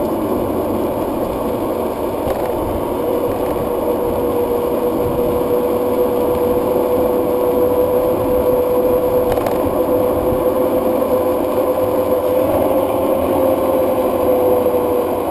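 Steady running noise of the vehicle carrying the camera as it travels along a road: tyres on tarmac with a continuous rushing sound. A steady mid-pitched whine comes in about three seconds in and holds.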